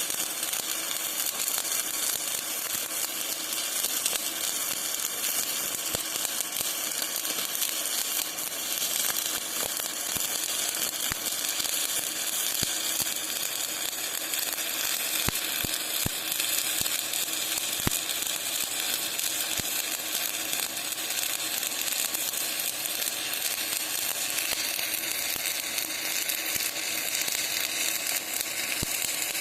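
Shielded metal arc (stick) welding with an E7018 electrode, the arc making a steady frying crackle with scattered sharp pops as a filler pass is laid down.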